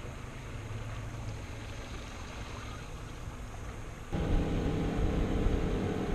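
Steady low rumble of wind and water around an open fishing boat, cut off abruptly about four seconds in by a louder, steady motor hum.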